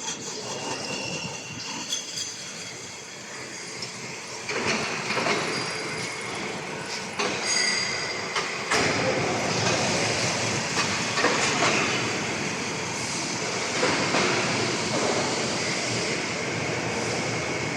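Automatic CNC lathe machining steel roller pipes: a steady metallic running and cutting noise, broken by several sharp metal clanks, with a brief high squeal about seven to eight seconds in.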